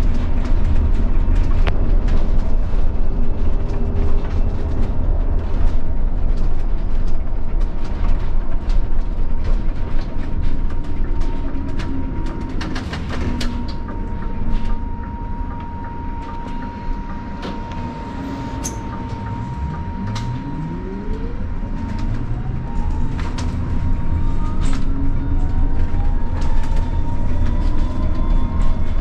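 Scania Citywide BEV electric bus heard from inside the cab on the move: a heavy road rumble with frequent knocks and rattles over a steady high whine. From about twenty seconds in, a rising electric-motor whine as the bus picks up speed.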